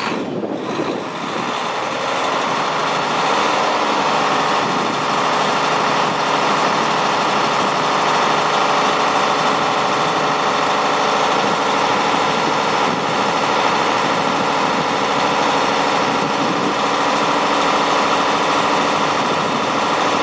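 2012 Mack CXU613 tractor's diesel engine idling steadily, settling to an even, slightly louder note about two seconds in.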